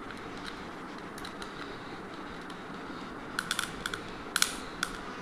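Light clicks and taps of a Bluetooth speaker's plastic parts and small components being handled during disassembly, a scattered few at first, then a quick run of clicks over the second half with one sharper click, over a steady low hiss.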